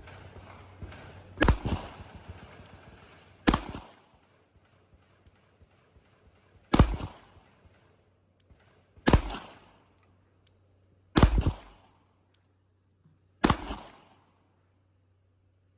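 Six single 9mm gunshots fired slowly, two to three seconds apart, each a sharp crack followed by a short echo. This is deliberate aimed fire over iron sights.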